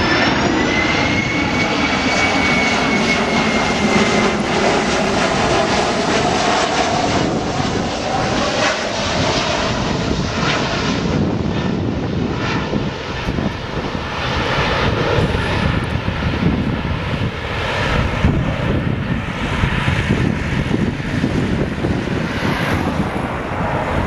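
Jet airliner's engines passing low overhead on landing approach: a steady loud rumble, with a high whine that rises and then falls and a lower tone that sinks in pitch over the first several seconds.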